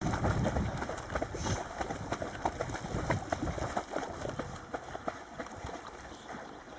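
Dogs swimming, their paddling making irregular small splashes and water sloshing, louder at first and fading toward the end.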